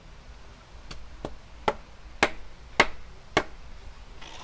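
A blade chopping into a coconut to open it: six sharp blows about half a second apart, the middle ones the loudest.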